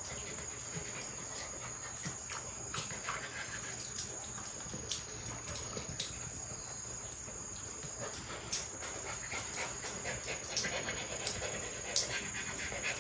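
A puppy moving about on a thin metal chain: scattered light clinks of the chain links while it is handled and petted.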